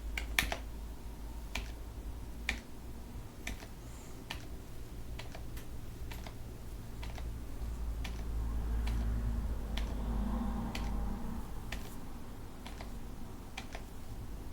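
Sparse, irregular clicks from a computer's keys or buttons, about one a second, over a low steady hum.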